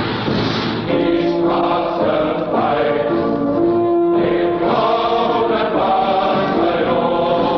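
Music: a choir singing an anthem in slow, long-held notes.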